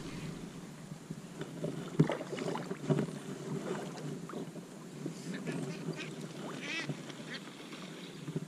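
Ducks quacking on and off, with a couple of sharp knocks about two and three seconds in.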